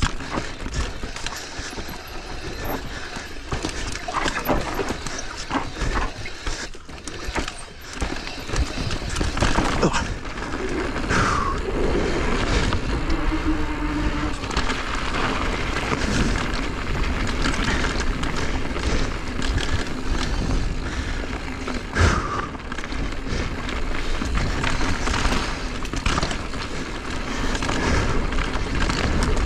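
Mountain bike riding down a rocky technical trail: tyres and frame rattling and knocking over rocks and roots, with a steady low rush under it. A couple of brief squeaks, about 11 and 22 seconds in.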